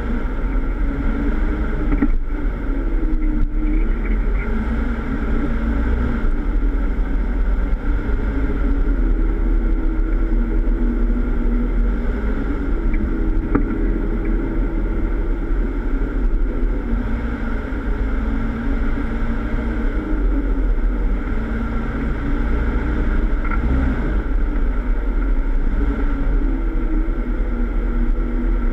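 Jeep Wrangler's engine running at low, gently varying revs as the Jeep drives an off-road course, under a heavy low rumble, heard close up from the front bumper. Its pitch drops near the end.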